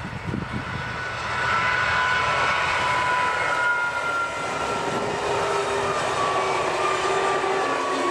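A passenger train hauled by ČD class 854 diesel railcars passing at speed: diesel engine noise and rolling wheels on the rails, with high whining tones that slowly slide lower in pitch as the train goes by.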